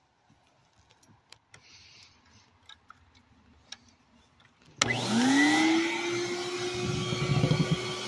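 A few faint clicks, then about five seconds in the Eureka Rally Powerline Gold 3948 canister vacuum cleaner is switched on: its motor spins up with a whine rising in pitch, then settles into steady running.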